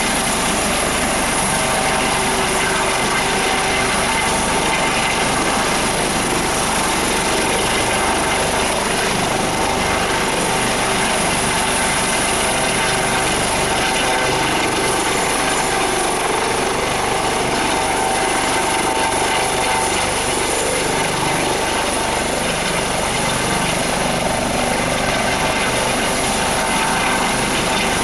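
Coast Guard HH-65 Dolphin twin-turbine helicopter hovering close by: loud, steady rotor and engine noise with a high whine over it.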